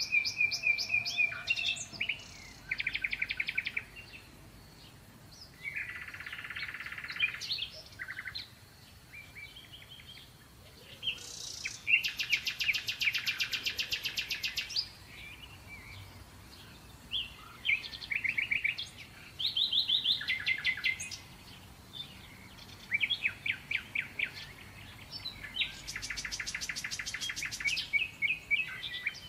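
A songbird singing: phrases of whistled chirps and fast trills, separated by short pauses. The longest trills come about twelve seconds in and again near the end.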